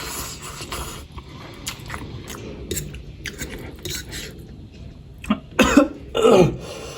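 Quiet eating sounds with small clicks and smacks, then a burst of loud coughs about five and a half seconds in, from a person eating very spicy noodles.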